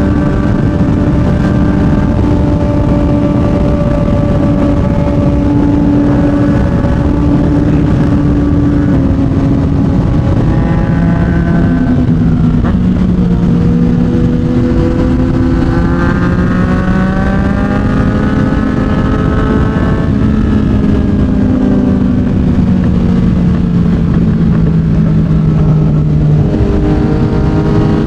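Yamaha MT-09's three-cylinder engine through a Yoshimura R55 slip-on exhaust, riding under way. The revs rise and fall, with sudden pitch steps at gear changes, a long climb about halfway through and a gradual easing off after it.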